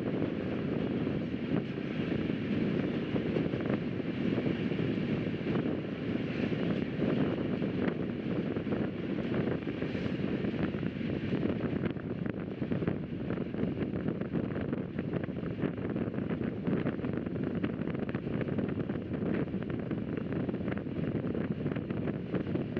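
Rajdhani Express passenger train running at speed: a steady rumble of wheels on rail with wind noise, dotted with many small clicks and rattles that come thicker in the second half.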